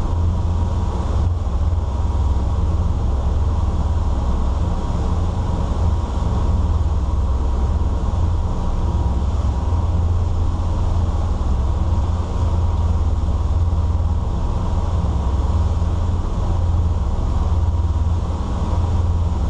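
Engines of a 2000 Sea Ray 34-foot cruiser running at steady cruising speed: a constant low drone under the helm enclosure, with a steady hiss over it.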